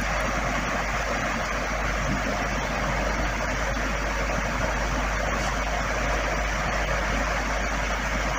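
A steady rushing background noise with a low hum underneath, unchanging throughout.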